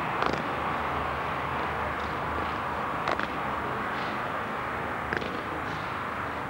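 Steady outdoor background noise with a few brief, sharp clicks scattered through it.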